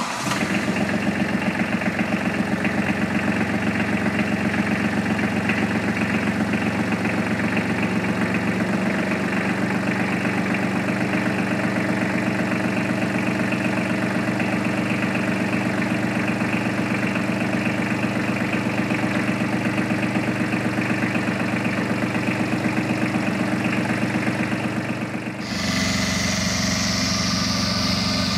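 Tractor engine running steadily with a regular pulsing beat. About 25 seconds in the sound changes to the tractor and its PTO-driven rotary mower cutting grass, with more high-pitched noise added.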